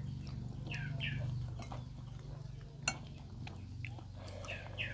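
Quiet eating at a table: small clinks of plates and one sharp tap about three seconds in, with a few short falling bird chirps in the background and a steady low hum.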